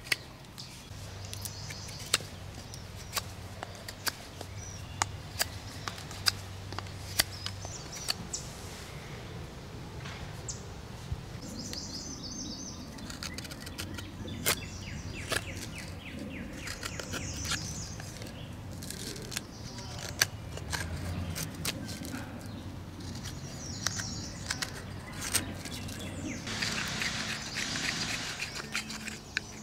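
Knife carving a wooden spoon: irregular sharp clicks as the blade bites the wood, and scraping strokes as it shaves it, the longest stroke near the end.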